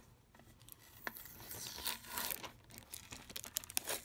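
Clear plastic shrink wrap being peeled and torn off a metal marble tin, crinkling and crackling with many small clicks, starting about half a second in.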